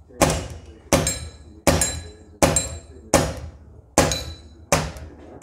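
Crosman 600 semi-automatic CO2 air pistol fired in quick succession, about seven shots at an even pace of roughly one every three quarters of a second. Each shot is a sharp crack, and several carry a high ringing ping from steel plate targets being hit. Firing this fast uses up the CO2 gas quickly.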